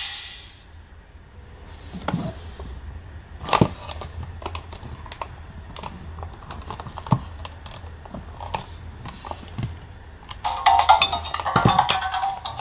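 Plastic clicks and knocks as a cube-shaped toy transformation device is turned and unfolded in the hands. About ten seconds in, the toy's electronic sound effects start playing from its small speaker as it lights up.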